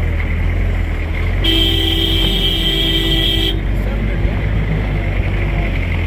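Vehicle engine and rough-road rumble heard from inside the cab. A car horn sounds one steady blast of about two seconds, starting about one and a half seconds in.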